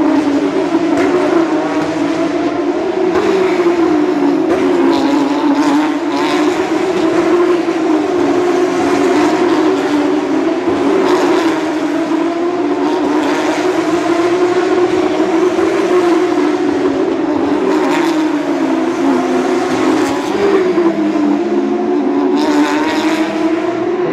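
Porsche 911 GT3 Cup race cars' flat-six engines running without a break, their pitch rising and falling as the cars accelerate and lift off through the corners.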